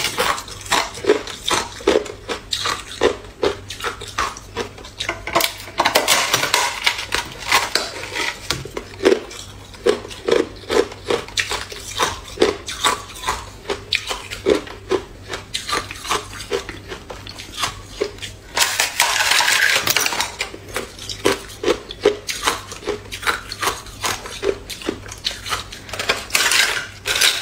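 Thin sheet of clear ice being bitten and chewed: repeated sharp crunches and cracks, a few every second, with short stretches of denser crackling as larger pieces break off.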